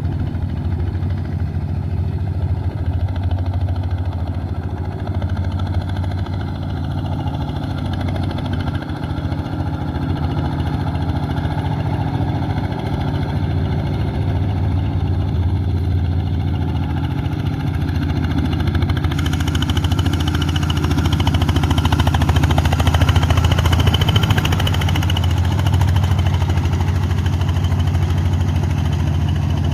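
Boat-type paddy-field tractor's engine running steadily, with a low, even hum; it gets a little louder and harsher in the second half.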